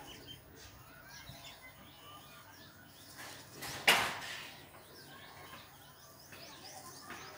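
Birds chirping faintly in the background while a pen scratches curves on paper on a clipboard, with one sharp knock about four seconds in, the loudest sound.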